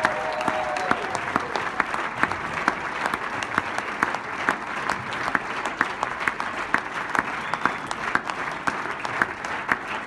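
Concert audience applauding steadily, with sharp single claps from someone close standing out. The last held note of the song fades out about a second in.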